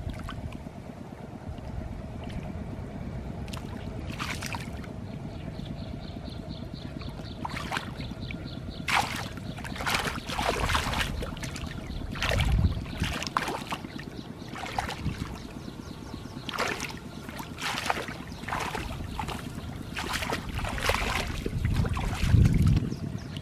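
Shallow muddy water splashing and sloshing as hands grope through it and the mud underneath. The splashes grow frequent from about nine seconds in, with heavier sloshes near the middle and near the end.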